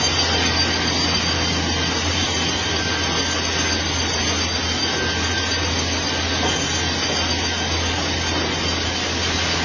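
Industrial vertical band saw running steadily, its blade cutting lengthwise through a large timber beam, over a constant low machine hum.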